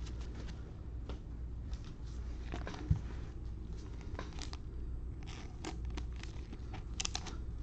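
Gloved hands handling trading cards and sliding one into a clear plastic sleeve: soft card rustling, plastic crinkling and light clicks over a low steady hum. One sharp knock about three seconds in is the loudest sound.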